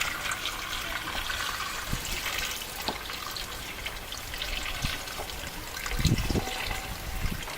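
Water trickling and splashing, with a few light knocks and a duller thump about six seconds in.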